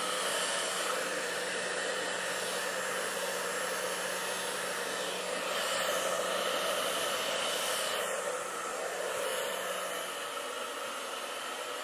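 Hand-held hair dryer blowing a steady rush of air over wet, thinned paint on a canvas to push it around. A low hum under the blowing stops about eight seconds in, and the blowing gets a little quieter near the end.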